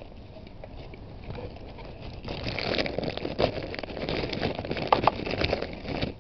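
Handling noise: a hi-vis jacket's fabric rubbing and scraping over the camera's microphone, with sharp knocks and clicks, starting about two seconds in and stopping just before the end.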